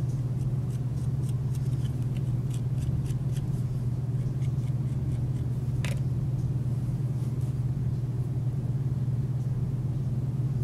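A steady low hum throughout, with faint scattered clicks and taps from hands working small clay feet onto a coil bowl, and one sharper tap about six seconds in.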